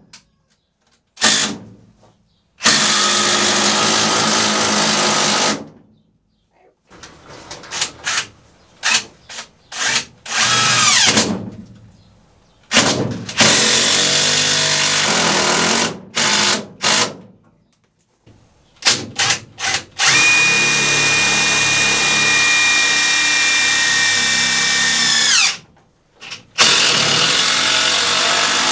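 Power drill driving screws into log roost bars, in several runs of a few seconds each with short trigger bursts between them. In the longest run the motor whine holds steady, then falls away as the trigger is let go.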